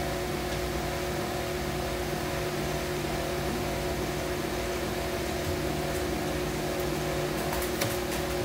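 Tilt-head stand mixer running steadily on its low stir setting, beating pound cake batter as flour is added in. A few light clicks near the end.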